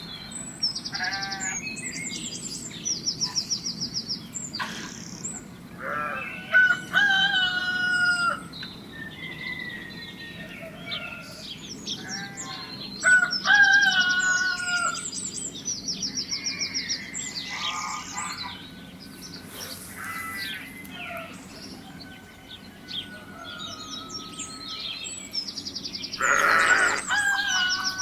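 A rooster crowing twice, with hens clucking and small birds chirping in quick, high, repeated trills throughout.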